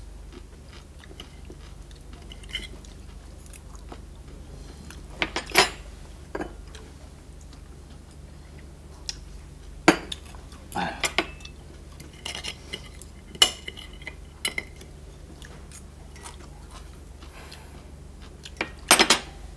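Cutlery clinking and scraping against china plates and teacups in scattered, irregular light clinks, over a faint steady low hum.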